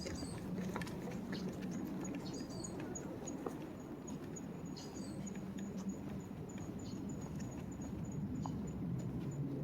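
Outdoor city ambience: a steady low hum of the surroundings with a thin, high ticking chirp repeating about three times a second, a few short falling bird chirps, and scattered light clicks.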